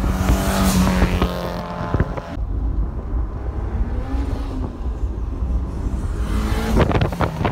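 Car engines and road noise heard from a moving car, with wind buffeting the microphone. A steady engine drone fills the first couple of seconds, then drops to a lower rumble.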